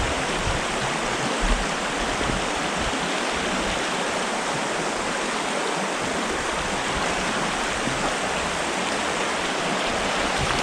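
Small stream's water rushing and burbling steadily over riffles, with a brief low bump about one and a half seconds in.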